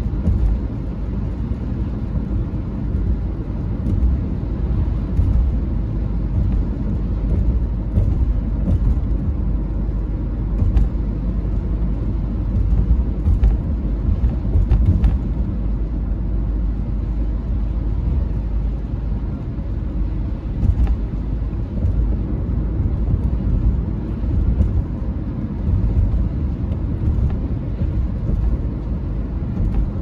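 Steady low rumble of a car driving on a wet road, heard from inside the cabin: engine and tyre noise on the rain-soaked pavement. A few faint ticks come through at scattered moments.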